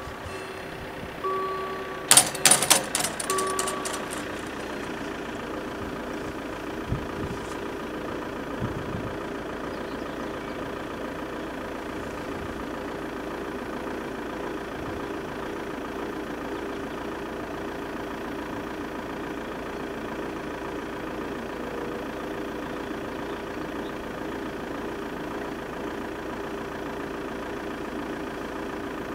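Level crossing warning: an intermittent electronic tone and a quick run of bell strikes as the barrier arm lowers, stopping about four seconds in. After that a steady hum with one constant low tone carries on.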